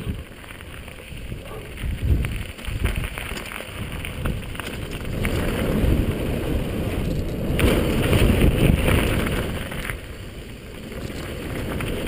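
Wind buffeting a helmet-mounted camera's microphone, with the tyre and trail rumble and rattling of a Marin Quake 7.3 downhill mountain bike descending at speed. The noise grows louder and brighter for a couple of seconds about two-thirds of the way through.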